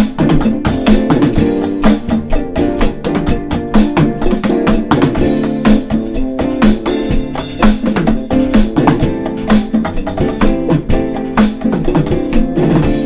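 Alesis DM6 electronic drum kit played in a fast improvised groove: the module's sampled drum and cymbal sounds in a dense, steady stream of hits.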